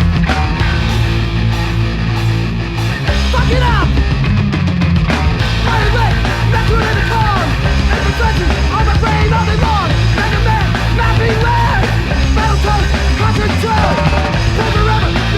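Thrashcore song: loud, dense punk rock music with no break.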